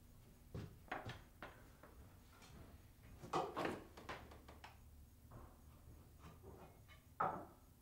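Wooden boards and a tool being handled and set down on a wooden workbench: a few light knocks and scrapes, the loudest about three and a half seconds in and another sharp knock near the end.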